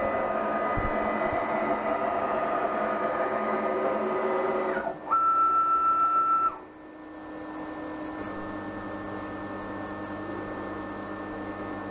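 Stepper motors of a 6040 CNC router whining as the machine homes its axes: a steady whine of several tones for about five seconds, then a louder single-pitched whine for about a second and a half that stops abruptly, then a quieter steady low hum.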